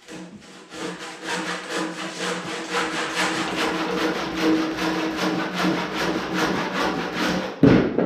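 Hand saw cutting through the last of a 6x6 cedar post, in quick, even back-and-forth strokes, finishing a cut that the circular saw couldn't reach. Near the end the cut-off end breaks free and drops with one heavy thump.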